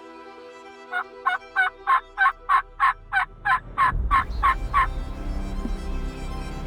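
Turkey yelping: a run of about a dozen short, evenly spaced yelps, three to four a second, ending about three quarters of the way through. Low music swells in under the last yelps and carries on.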